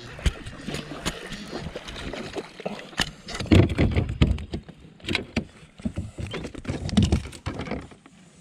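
A bass being landed in a small fishing boat: a run of irregular knocks and thumps against the boat, loudest about three and a half seconds in and again near seven seconds, dying away near the end.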